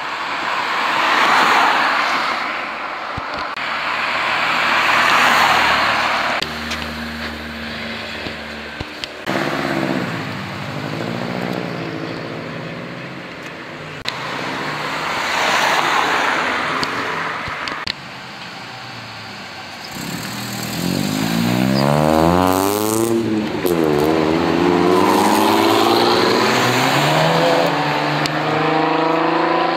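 Several cars driving past one after another, their exhaust and tyre noise swelling and fading with each pass. In between, an engine is revved twice, its pitch climbing and dropping, then holds a steady pull near the end.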